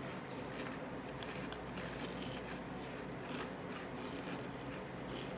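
Quiet eating sounds: spoons clicking and scraping in plastic bowls and chewing of cereal in milk, a few faint clicks over a steady low hum.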